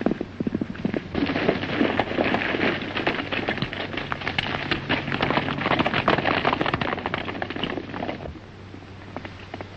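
Galloping horses' hooves on a dirt trail. A sparser beat at first, then from about a second in a dense clatter of many horses galloping together, which drops away about a second before the end.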